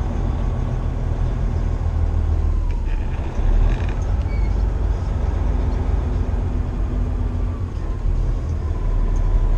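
Semi truck's diesel engine droning in the cab while driving. About three seconds in, a gear change makes the engine whine dip and then come back up.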